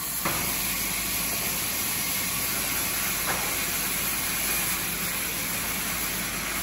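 Sawmill band saw running, a steady hiss with a thin high whine over it, broken by two short sharp knocks, one just after the start and one about three seconds in.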